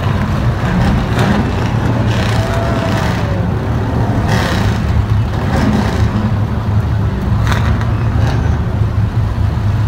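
A grid of Stadium Super Trucks idling together: a steady, loud, low engine rumble from the many race-truck engines, with a few brief sharper noises over it.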